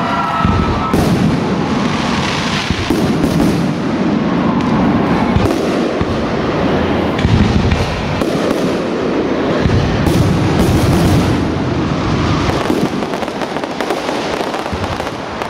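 Professional aerial fireworks bursting in the sky: a dense, continuous run of overlapping bangs and crackles with no break, easing slightly near the end.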